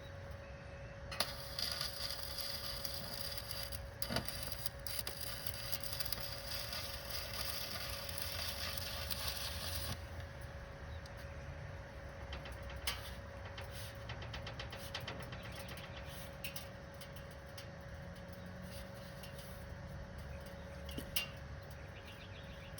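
Electric welding arc crackling and sizzling through a continuous bead on a steel exhaust stack pipe. It starts about a second in and cuts off abruptly at about ten seconds. After that come short, fainter bursts of crackle and ticking, over a steady hum.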